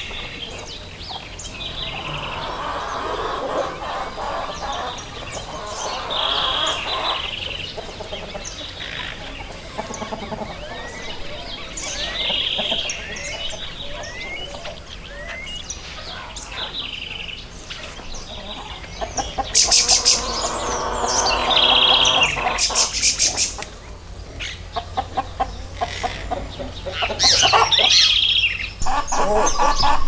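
Chickens clucking among wild birds calling and chirping. A high call repeats about every six seconds, and louder rapid rattling bursts come about two-thirds of the way through and again near the end.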